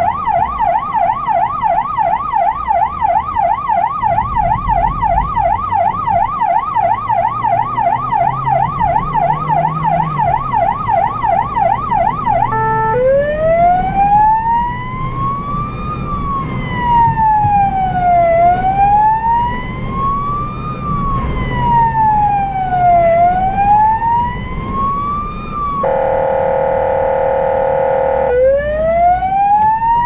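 Electronic emergency-vehicle siren on a blood-transport car running code: a fast yelp for the first twelve seconds or so, then switching to a slow rising-and-falling wail. Near the end a steady horn tone sounds for about two seconds before the wail starts climbing again, over a low engine and road hum.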